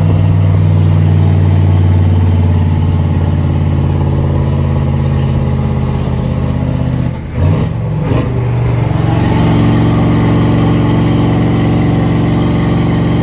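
A vehicle engine running steadily. About seven seconds in it dips briefly, then settles into steady running again at a slightly different pitch.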